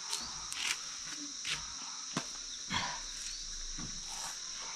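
A steady high-pitched insect drone, with several short knocks and rustles as potted plants in plastic pots are handled and set down.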